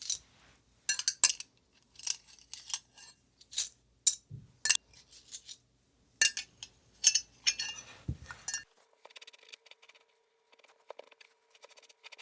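Small metal furniture fasteners and hardware clinking and clattering against each other and their container in irregular, quick strikes. A little under nine seconds in the clatter stops, leaving only faint ticks over a steady low hum.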